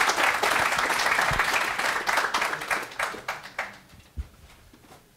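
Audience applauding. The clapping thins out and dies away about three and a half seconds in.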